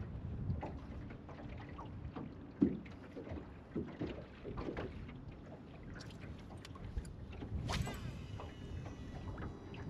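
Small waves slapping and knocking against the hull of an aluminum boat. About three-quarters of the way through, a fishing reel's spool whirs briefly during a cast.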